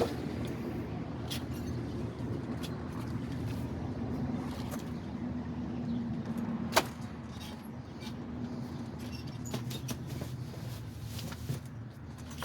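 A steady low mechanical hum with scattered light clicks and knocks, one sharp click about seven seconds in.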